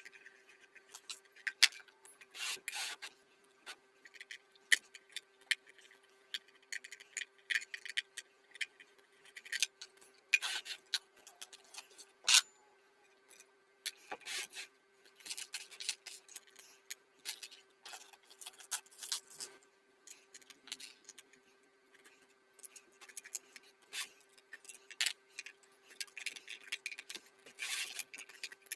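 Hand work on small parts: irregular rubbing and scraping strokes with scattered sharp clicks, over a faint steady hum.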